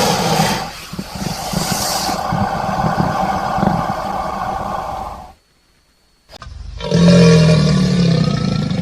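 Crocodile calling: a long, rough, deep call with a fast low pulsing that cuts off about five seconds in, then after a second of dead silence a second call begins about seven seconds in.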